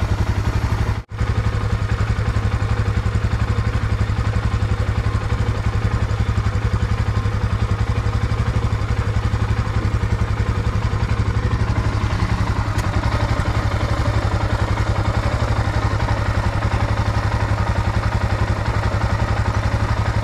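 Royal Enfield Himalayan's 411 cc single-cylinder engine idling steadily, in gear on its stand with the rear wheel and chain turning. There is a brief break in the sound about a second in.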